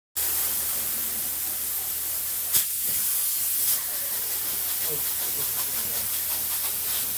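Spray foam insulation gun spraying polyurethane foam between wooden joists: a steady, loud hiss, with two short, sharper spurts about two and a half and three and a half seconds in, over a faint low hum.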